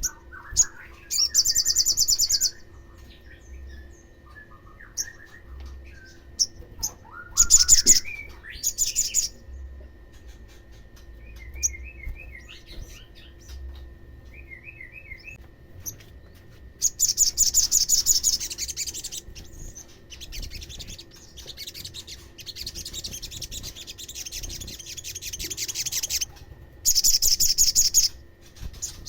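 Olive-backed sunbird song: loud, very high, rapid trills in four bursts of one to two seconds each, with softer, lower twittering chirps between them. It is a lure call meant to set other sunbirds singing.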